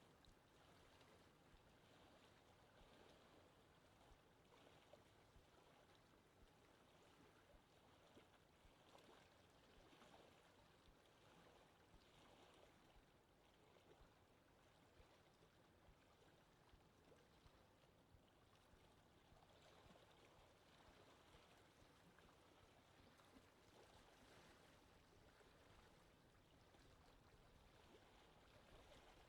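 Faint lake ambience: wind over open water with small waves lapping, an even hiss broken by soft, irregular little splashes.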